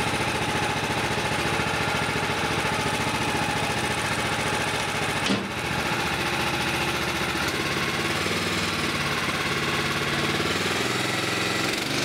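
Gas engine of a Woodland Mills HM130 Max portable bandsaw mill running steadily, with a single sharp knock about five seconds in.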